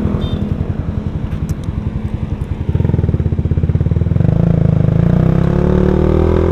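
Suzuki Satria F150 fuel-injected single-cylinder engine through a racing exhaust, pulsing at low revs while the bike crawls. About three seconds in it gets louder, then it climbs in pitch as the bike accelerates.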